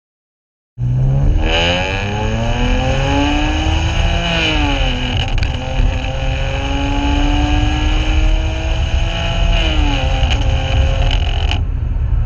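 2009 BMW 335i's twin-turbo N54 straight-six, running through catless downpipes and a full exhaust, starts about a second in and pulls up in revs, eases off, holds, then drops again, with a heavy rough rumble underneath. It is misfiring and sputtering because of worn spark plugs.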